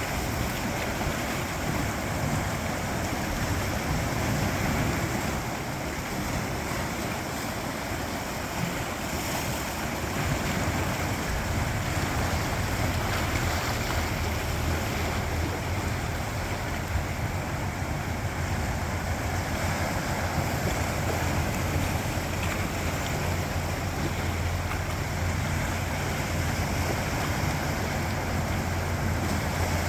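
Sea waves washing steadily over a rocky shore, an even, continuous surf. A low wind rumble on the microphone grows stronger in the second half.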